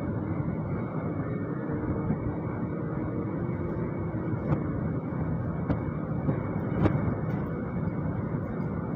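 Metal lathe running steadily while turning a shaft, with a few light clicks in the middle.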